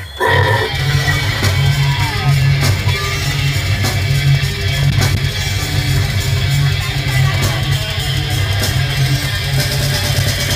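A death metal band playing: heavily distorted electric guitars and bass in a fast, low riff, with drums. The band crashes in suddenly at the start.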